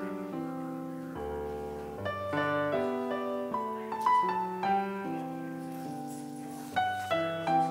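Piano music played on a digital keyboard: held chords under a melody, with the notes changing every half second to a second.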